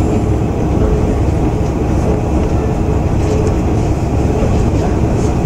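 KiHa 120 diesel railcar running, heard from inside the car: a steady, loud drone of the engine and the wheels on the rails.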